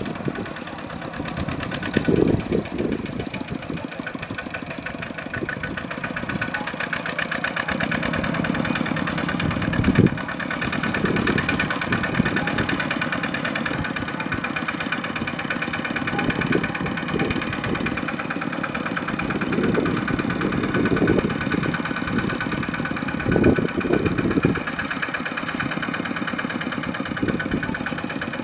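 Kubota single-cylinder diesel tractor engine running steadily with a fast, even chug, swelling louder briefly a few times.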